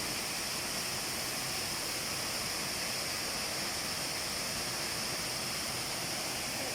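Steady rushing of falling water from a waterfall: an even, unbroken hiss.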